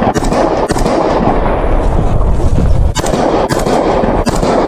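Kalashnikov-pattern assault rifle firing single shots at close range, about five cracks at uneven intervals, over a loud continuous din.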